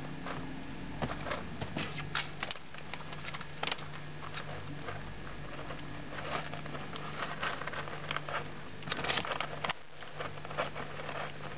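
Young kittens moving about on newspaper and in a plastic tray, making irregular small clicks, taps and rustles. A steady low hum runs behind them.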